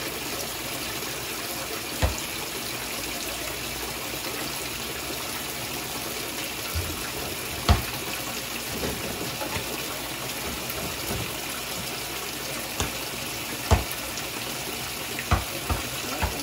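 Whirlpool direct-drive top-load washer filling for the rinse: a steady stream of cold water pouring into the tub. A few sharp knocks stand out over it, the loudest about two, eight and fourteen seconds in.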